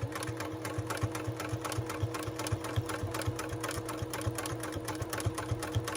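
Electric sewing machine running steadily, stitching a zipper into a hoodie, with rapid, even stitch ticks over a steady motor hum.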